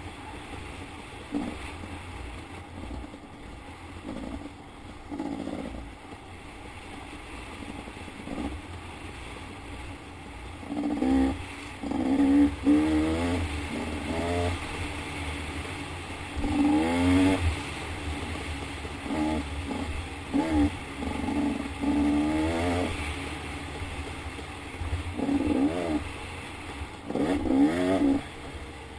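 Dirt bike engine revving up and dropping back again and again as the throttle is worked, heard from the rider's helmet, with a steady low rumble underneath.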